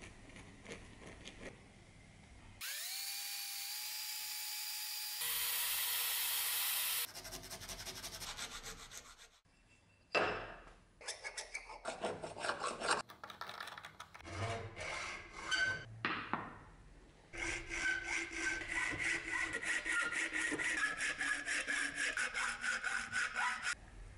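Workshop hand- and power-tool sounds while shaping a knife handle. Faint filing at first, then a power tool spins up with a rising whine and cuts noisily for a few seconds. Scraping strokes and knocks follow, and for the last several seconds there are fast, even back-and-forth rasping strokes.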